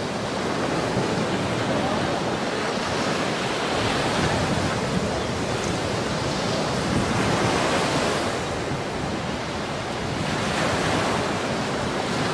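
Surf washing onto a sandy beach, mixed with wind buffeting the microphone: an even rushing noise that swells and eases every few seconds.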